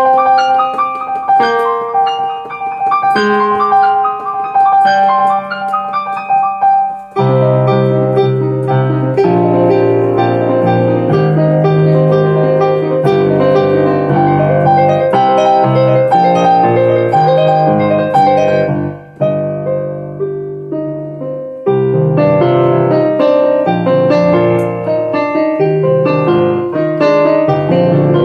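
Digital piano playing a solo piece: a light melody in the upper register for about seven seconds, then fuller chords over a low bass line. The playing thins and drops in level around nineteen seconds, and the full texture comes back a couple of seconds later.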